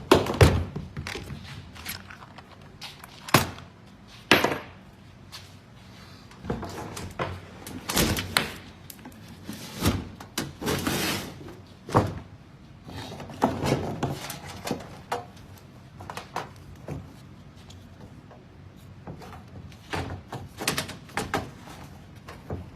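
Irregular thunks and clanks of a direct-drive washing machine being taken apart by hand, its parts knocked, pulled and set down. The knocks come every second or so, the loudest near the start.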